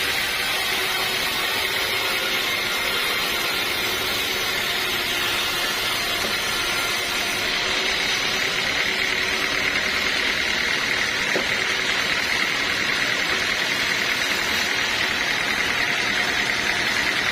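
Bandsaw mill running steadily as it saws teak, a continuous, even rushing noise that holds level throughout.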